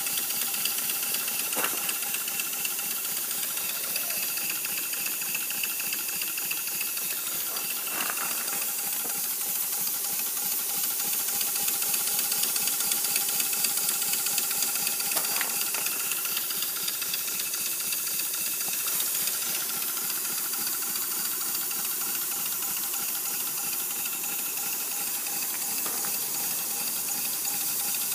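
Chassis of an LBSC Tich 3.5-inch gauge live steam locomotive running on compressed air, its cylinders driving the wheels and valve gear with a steady hiss. The hiss is air leaking from steam chests fitted without gaskets.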